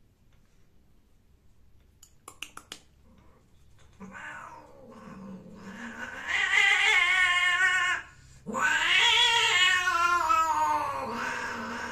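Female long-haired cat yowling as a male cat mounts her and holds her by the scruff: the drawn-out caterwaul of a queen being mated. Two long yowls, the first building from about four seconds in, then a short break and a second one that tapers off.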